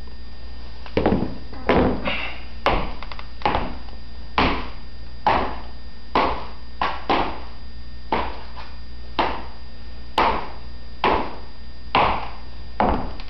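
Footsteps in Allen Edmonds cordovan loafers fitted with metal wedge heel plates and toe taps, each step a sharp click on the hard floor. The clicks start about a second in and come steadily at about one per second.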